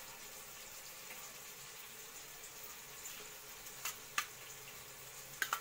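Raw anchovies being tossed by hand in a steel bowl: a few sharp clicks against the bowl in the second half, over a steady faint hiss.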